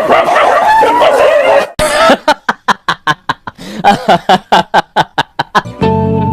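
Laughter: a high, wavering laugh, then a run of quick, regular laughs at about four a second. Music comes in near the end.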